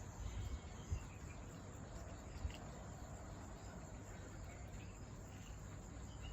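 Faint outdoor ambience: a steady chorus of insects, with a few soft bird chirps and two brief low bumps, about a second and two and a half seconds in.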